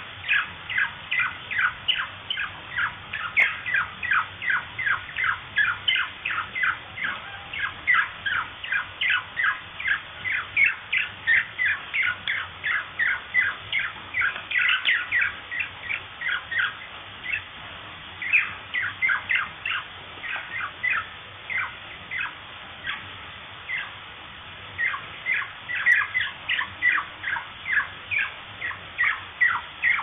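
Budgerigar calling: a rapid run of short, high chirps, about three a second, thinning out for a few seconds past the middle.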